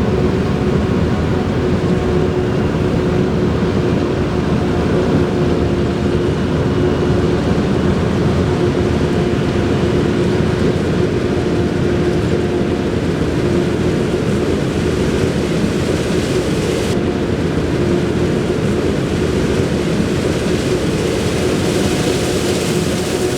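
Heavy diesel farm machinery running steadily under load, a continuous rumble with a steady whine over it.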